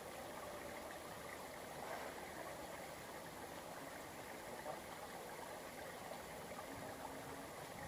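Faint steady rush of flowing water, with a brief low hum near the end.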